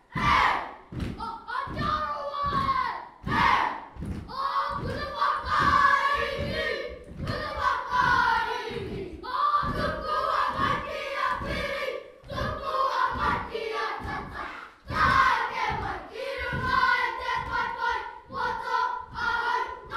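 A group of children chanting a haka in unison, shouted and rhythmic, with foot stamps about twice a second.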